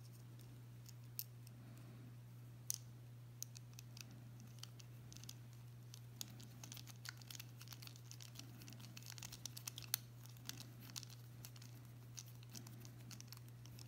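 Faint small clicks and scratches of a bit driver turning tiny screws into a folding knife's titanium scales, sparse at first and more frequent in the middle, over a steady low hum.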